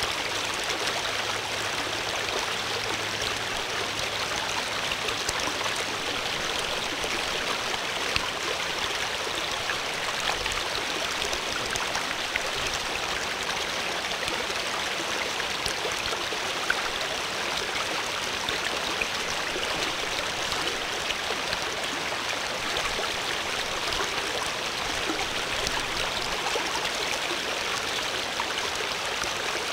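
Steady rush and babble of running stream water.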